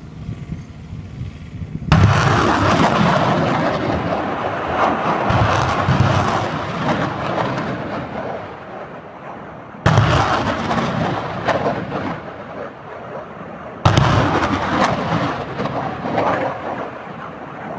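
Rockets launched from an M270 multiple rocket launcher, three times: about two, ten and fourteen seconds in. Each launch is a sudden blast followed by a roar that fades over several seconds. Before the first launch a low engine hum is heard.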